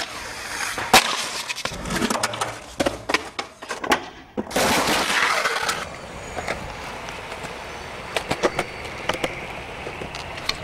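Skateboard sounds: the board clacking and knocking on concrete, with the loudest snap about a second in and scattered lighter clicks later. About halfway through comes a harsh rush of noise lasting over a second.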